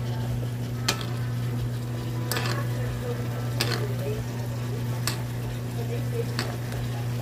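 Sirloin steaks frying in melted margarine in a cast iron pan while a metal spoon bastes them, the spoon clicking against the pan five times, about every second and a half. A steady low hum runs underneath.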